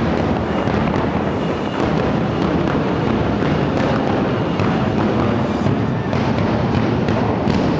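Fireworks finale: a dense, continuous barrage of many shells bursting at once, merging into one steady loud rumble with crackle on top.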